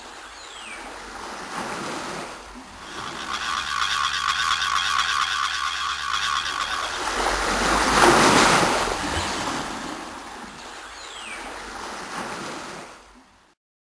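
Seaside sound effect of waves washing in. A rhythmic whirring runs from about three to seven seconds in, a louder rush comes about eight seconds in, and the sound fades out near the end.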